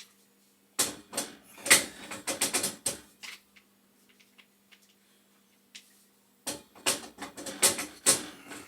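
Metal hand tools and gas-pipe fittings clinking and knocking as a wrench is fitted to a boiler's gas valve piping, in two bursts of rapid, irregular clicks. A faint steady low hum runs underneath.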